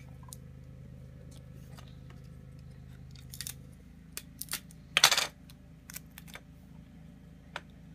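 Hands taping a small paper strip onto a toy monster truck: light clicks and taps, with short rasping bursts about three and a half and five seconds in, the second the louder.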